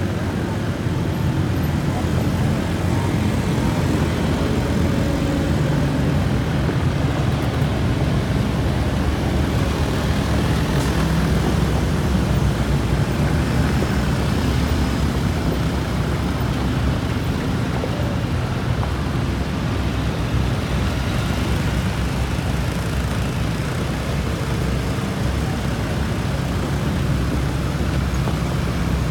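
Steady low rumble of many vehicle engines running together as a line of sprint cars moves out with push trucks and ATVs.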